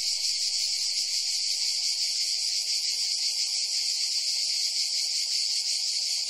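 A steady, high-pitched insect chorus buzzing without a break.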